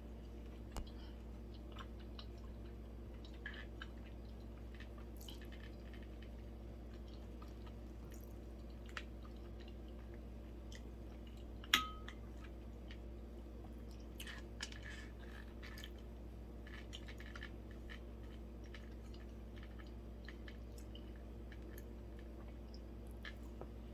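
Close-miked chewing of sushi: soft wet mouth sounds with scattered small clicks, and one sharper click about twelve seconds in.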